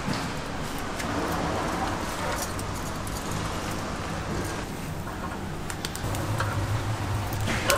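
Steady background noise, with a low hum coming in about six seconds in and a few light clicks near the end.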